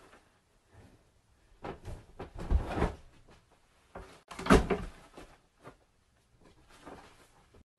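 A few dull knocks and thumps with some rustling, the loudest about four and a half seconds in.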